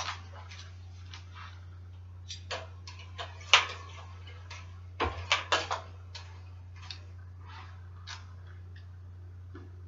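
Scattered light clicks and taps of bicycle parts being handled as handlebars are fitted to a stem. The loudest tap comes about three and a half seconds in, with a quick cluster around five seconds, over a steady low hum.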